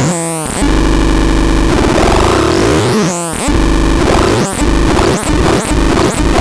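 Harsh, noisy synthesizer tones: a dense buzzing drone with falling pitch sweeps near the start and again about three seconds in, turning into a regular pulsing rhythm from about four and a half seconds in.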